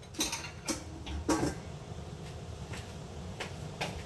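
A handful of light knocks and clicks from kitchen things being handled, the loudest a little over a second in, over a low steady hum.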